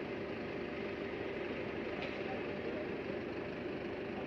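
Flatbed wrecker truck's engine running steadily with its hydraulic system engaged, an even hum while the rear wheel-lift controls are worked. A small click about two seconds in.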